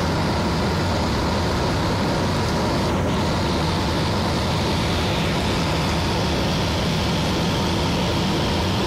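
Steady rush of airflow over the canopy and fuselage of an IS-30 glider in unpowered gliding flight, heard from inside the cockpit.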